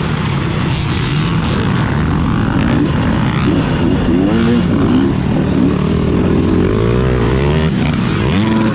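Motocross dirt bike engines revving hard on the track, the pitch climbing and dropping again and again as the throttle is worked and gears are shifted.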